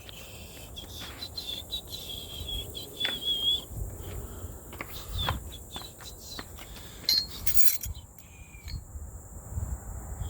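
Bird chirping in a wavering high phrase lasting a couple of seconds, over scattered short clicks and knocks.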